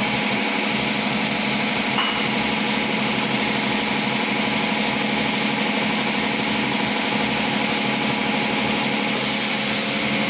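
Steady mechanical hum and whir of UPVC window-fabrication machinery running, with a small click about two seconds in and a brief hiss near the end.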